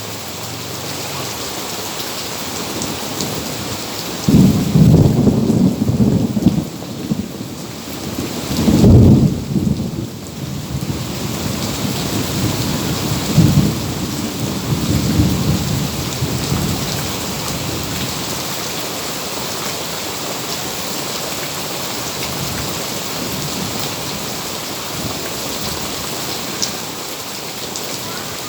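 Steady rain falling, with loud low rumbles of thunder in the first half: one running from about four to ten seconds in, a weaker one a few seconds later.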